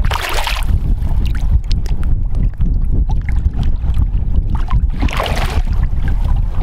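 Wind buffeting the microphone on a boat, with two splashes from a smallmouth bass: one at the start as it is lipped at the waterline, one about five seconds in as it is released back into the water.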